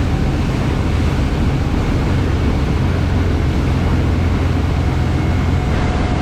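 Speedboat motor running steadily under way: a loud, even low drone with a constant rushing hiss over it.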